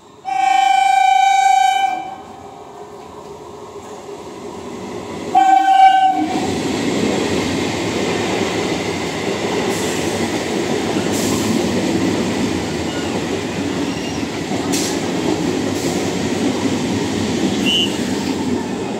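Electric multiple unit (EMU) local train sounding its horn in one long blast, then a shorter second blast a few seconds later. The coaches then run past with a steady rushing rumble and occasional clicks of wheels over the rail joints.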